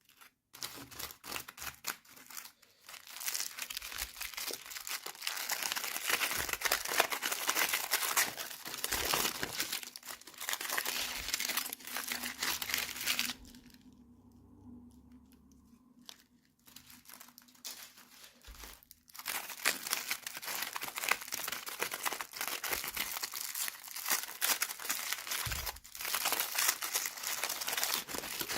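Toy packaging being handled and opened: crinkling and crackling with some tearing, in close, dense runs that pause for a few seconds about halfway through.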